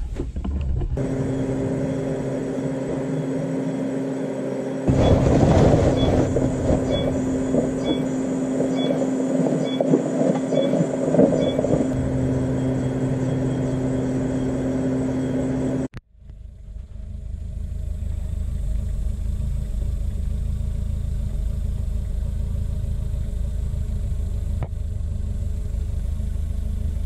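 Subaru Sambar kei truck's engine running at a steady idle, with a constant hum and a rougher, louder stretch in the first half; after a sudden break the sound returns as a lower steady rumble.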